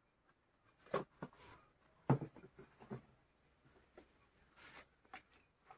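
Quiet, scattered knocks and clicks of kitchen items being handled during cooking, loudest about two seconds in, with a short rustle near the end.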